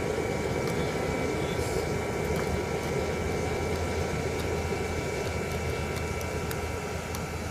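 Blast furnace running under its air blast: an even rushing noise with a low rumble and a thin steady whine over it.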